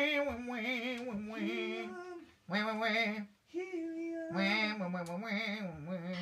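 A solo singing voice with no accompaniment, singing a vocal take into a studio microphone in a vocal booth: three held, wavering phrases with brief breaths between them.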